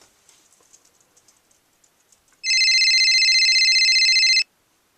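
Electronic ringing: a fast, warbling trill held for about two seconds, starting a couple of seconds in and cutting off abruptly.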